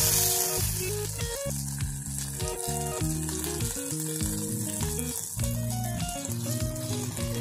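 Shallots and dried red chillies sizzling in hot oil in an aluminium kadai, stirred with a slotted spoon; the sizzle is loudest at the start and eases off about a second in, with scattered crackles. Background instrumental music plays throughout.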